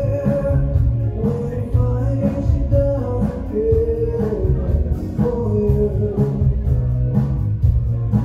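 Live rock band performing: a male singer sings over electric guitars, bass, drums and keyboards.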